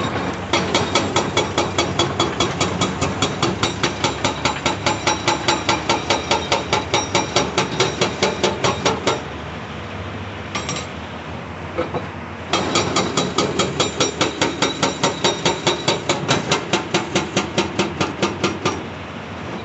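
Hydraulic breaker on a CAT 349E excavator hammering rock in a rapid, even beat of blows. It stops for about three seconds near the middle, with a couple of short metallic clinks in the pause, then hammers again in a second long run.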